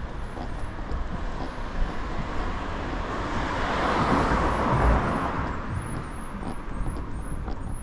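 A car passing by on the street: its tyre and engine noise swells to a peak a little past halfway, then fades away, over steady traffic noise.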